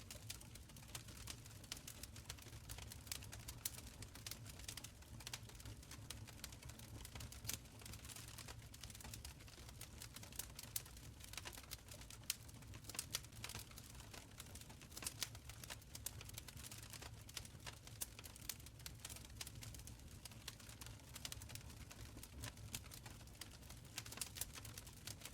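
Wood fire crackling in an open stone fireplace: irregular sharp pops and snaps over a soft, low rumble of burning.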